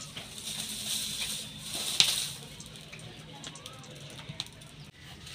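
Battered taro slices frying in hot oil in a blackened iron karahi: a hiss that swells as the pieces go in, then settles to a lower steady sizzle. One sharp crack about two seconds in is the loudest sound.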